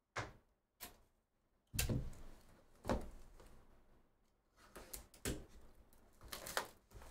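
A cardboard hobby box of trading cards being picked up and set down on a mat, with a couple of light knocks and then two heavier thumps. From about four and a half seconds in comes sharp crinkling as the plastic shrink-wrap is cut along the box edge and peeled away.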